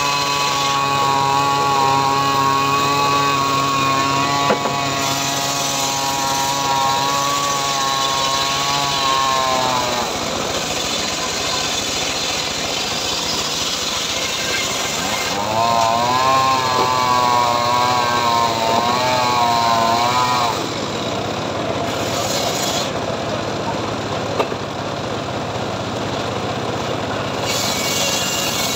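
Homemade circular sawmill ripping a mahogany log into boards: the big blade gives a wavering, pitched whine while it is in the cut, for about the first ten seconds and again for about five seconds past the middle, over the machine's steady running noise.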